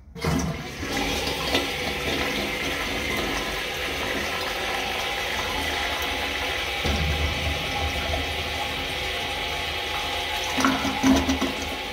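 A 1976 American Standard Glenwall tank toilet flushing: the lever is pushed and water rushes suddenly into the bowl, then runs on steadily as the bowl empties and refills, with a louder surge near the end.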